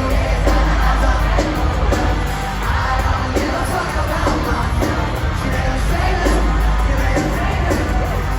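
Live rock band playing loud, with a heavy bass and drum beat, singing and the crowd yelling along, recorded from within the audience on a phone.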